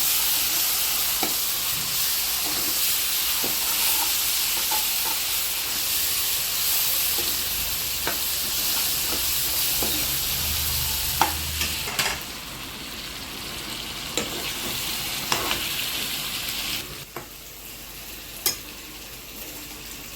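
Onions, spice powders and ginger garlic paste sizzling in hot oil while a spoon stirs and scrapes the pan, with occasional sharp clicks of the spoon against the pan. The sizzling drops noticeably about twelve seconds in and again near the end.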